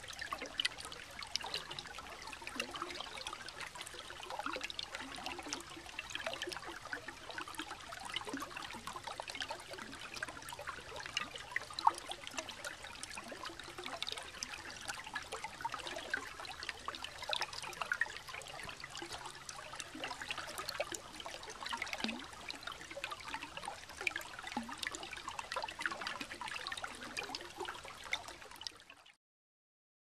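Brook water trickling and gurgling beneath a sheet of ice, with a dense patter of small clicks and pops as bubbles form under the ice. It cuts off abruptly near the end.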